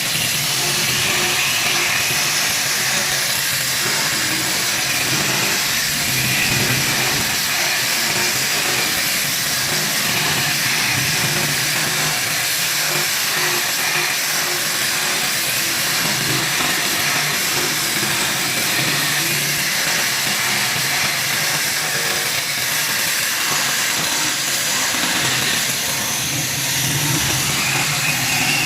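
A power tool running steadily with a constant hissing whir.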